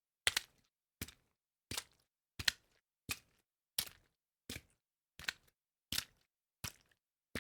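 Foley sweetener layer for footsteps through water: a steady series of short wet splashing steps, about ten in all, one every 0.7 seconds or so, each a crisp high splash with a brief tail and silence between.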